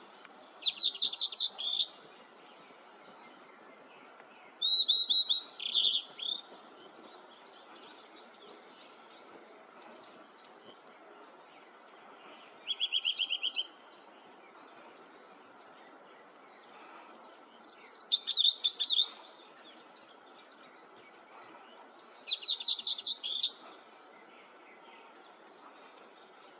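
Blue-and-white flycatcher singing: five short, clear, high song phrases, each about a second long with quick repeated notes, spaced several seconds apart.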